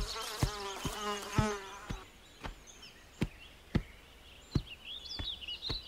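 A fly buzzing for about the first two seconds, over footstep thuds about two a second, with high bird chirps near the end.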